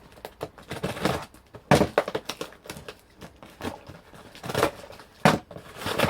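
Packaging being unpacked by hand: irregular rustling, crinkling and tearing, with a few louder knocks and clicks.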